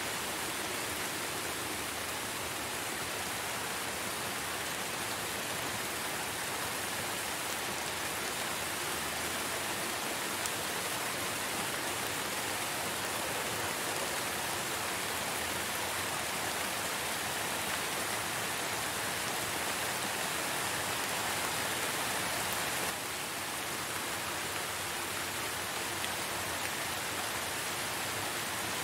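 Steady rain falling, an even hiss of many drops that eases slightly a little over three-quarters of the way through.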